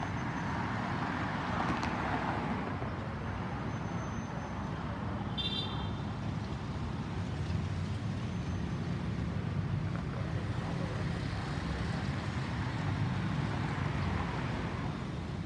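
Steady distant rumble of an Airbus A320neo's CFM LEAP-1A jet engines as the airliner climbs overhead, blended with road traffic noise. A brief high chirp sounds about five and a half seconds in.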